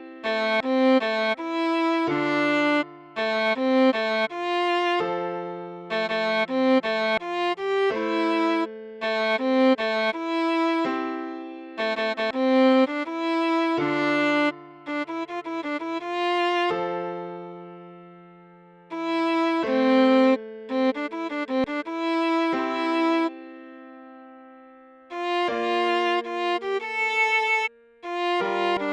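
Viola playing a melody in separate notes over lower held notes, with short pauses where the notes fade out.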